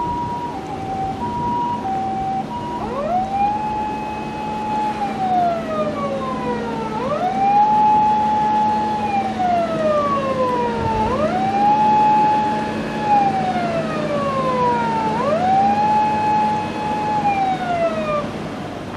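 Electronic siren of a Toyota HiAce High-Medic ambulance, switched on for a test. For about three seconds it plays the Japanese two-tone hi-lo "pee-poh" alternation. It then switches to a wail that rises quickly, holds, and falls slowly, four times about every four seconds, and stops near the end.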